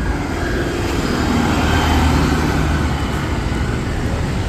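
Road traffic: motor vehicle engines running on a busy street, a steady hum and rush of traffic that swells slightly partway through.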